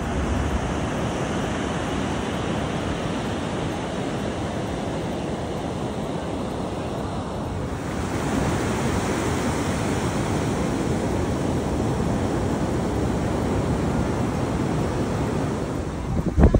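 Sea surf breaking and washing up a beach: a steady rushing hiss of waves.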